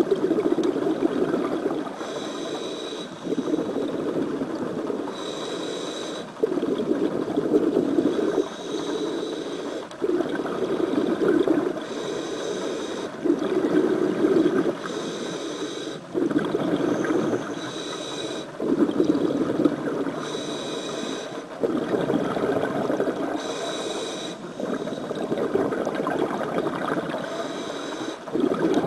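Scuba diver breathing through a regulator underwater: a short hiss with a thin high tone on each inhale, then a longer bubbling burst of exhaled air, repeating about every three to four seconds, some eight breaths in all.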